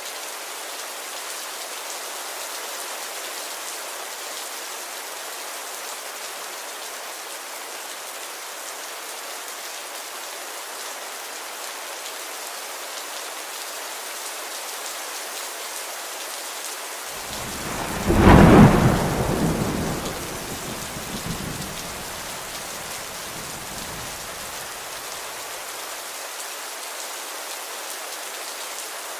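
Steady rain hiss, with one thunderclap a little past the middle that swells, peaks sharply and rumbles away over several seconds.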